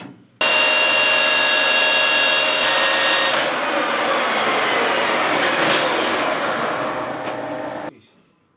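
Metal lathe running, a steady whirring whine with several held tones over a noise of machining; it starts abruptly about half a second in and cuts off near the end.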